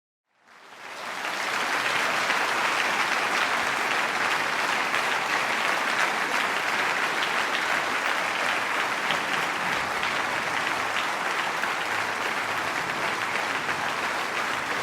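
Crowd applauding: dense, steady clapping that fades in over the first second or two, then holds.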